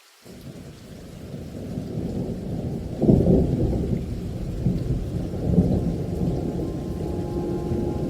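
Thunder rumbling through rain. The rumble comes in suddenly, builds, and peaks in a loud crack about three seconds in, then rolls on with smaller swells.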